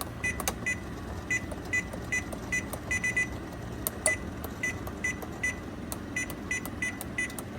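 Refrigerator's electronic temperature control panel beeping as its buttons are pressed. The short high beeps, all on one pitch, come singly and in quick runs of two or three at irregular intervals, with faint clicks.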